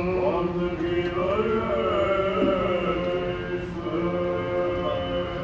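Orthodox liturgical chant sung by several voices, a melody line gliding between long held notes over a steady sustained lower drone note.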